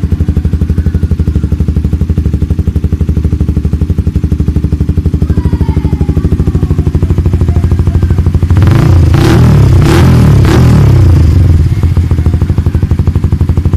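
Suzuki GSX-R150's single-cylinder engine idling through a Yoshimura R11 aftermarket exhaust with a deep, bassy pulsing note. After about eight seconds it is revved in a few quick throttle blips, then drops back to idle.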